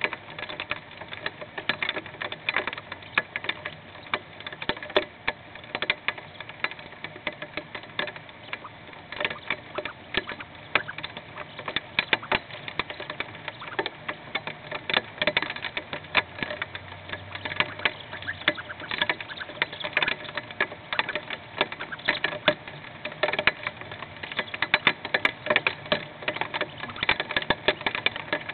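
Hail drumming on a nest box: a dense, irregular patter of sharp ticks and taps, many each second, without letup.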